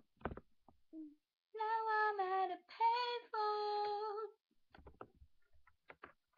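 A girl singing unaccompanied, drawing out the last word of a song's line in three long held notes. A sharp knock comes just before the singing, and faint clicks follow it.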